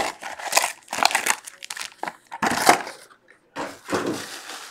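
Foil-wrapped trading card packs crinkling in short bursts as they are handled and lifted out of an opened cardboard box.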